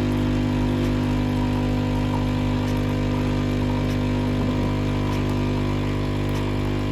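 Nescafé Dolce Gusto capsule coffee machine's pump running steadily with a loud, vibrating hum while it dispenses coffee into a mug.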